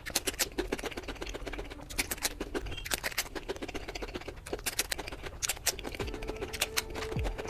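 Close-miked eating: a dense, irregular run of wet clicks and smacks from chewing a big mouthful. About six seconds in, a steady tone comes in under it.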